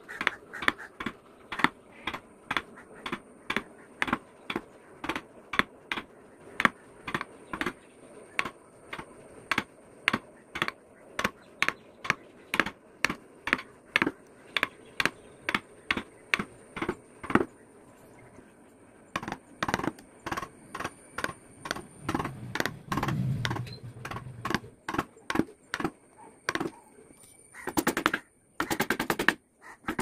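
Mallet tapping a carving chisel into teak, sharp regular blows about two a second. The blows stop briefly just past halfway, then come faster, with a dense flurry near the end.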